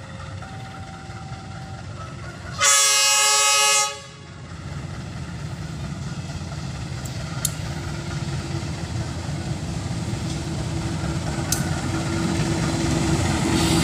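CC201 diesel-electric locomotive sounding one horn blast of about a second, a few seconds in. Afterwards the approaching train's engine and wheels rumble, growing steadily louder as it nears.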